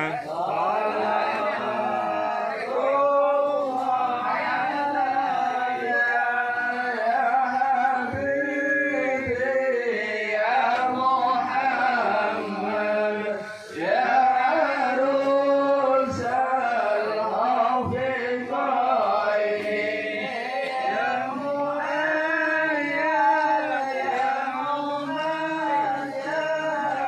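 Arabic Islamic devotional song (sholawat) sung by a male voice in long, drawn-out wavering notes.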